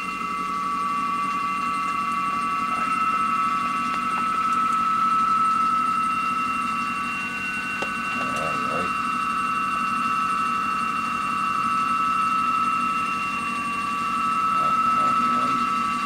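Audio from an amateur radio transceiver's receiver: several steady tones held over a low hum, a signal being tuned in and shown on the computer's waterfall display.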